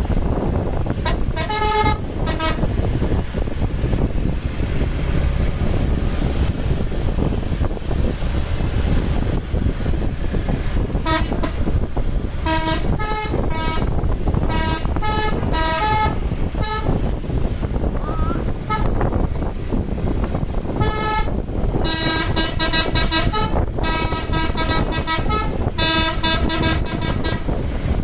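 Bus telolet basuri horn playing quick strings of musical notes in three spells, a short one at the start, a longer one midway and the longest near the end, over the steady low rumble of the bus.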